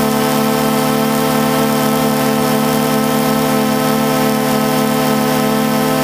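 DJI Phantom 2 quadcopter's motors and propellers humming at a steady pitch, heard up close from the drone itself.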